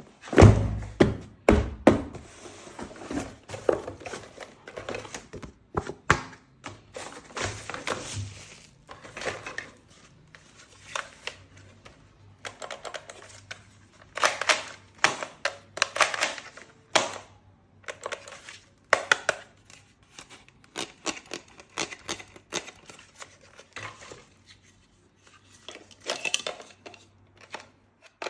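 Objects and packaging being handled and unpacked by hand: an irregular run of knocks and clatters, with crinkling and tearing of wrapping, over a faint low hum.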